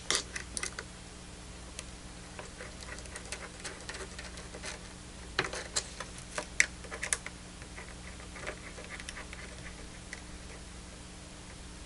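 Small clicks and light metallic taps from coaxial cables' SMA connectors being fitted and threaded onto the analyzer's ports by hand. They come in short clusters: just at the start, again around the middle, and once more a little later.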